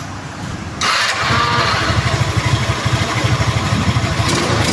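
Rusi Rapid 150 scooter engine starting up about a second in, then idling with a steady low pulse.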